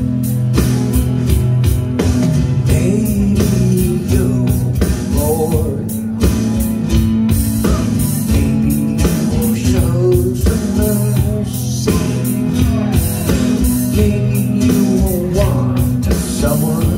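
Live rock song on amplified electric guitar over a steady beat and bass line, with a man singing from about five seconds in.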